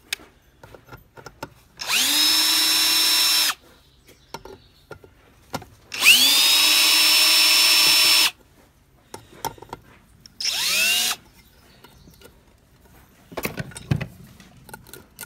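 Cordless drill-driver with a quarter-inch nut driver bit backing out screws from a pump motor's end cover. It runs three times, each run spinning up quickly and then holding a steady whine: the first two about two seconds each, the last one shorter. A few knocks of handled parts come near the end.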